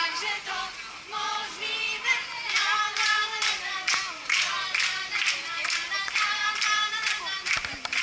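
A group of young people singing together, with rhythmic hand-clapping about twice a second joining in a couple of seconds in.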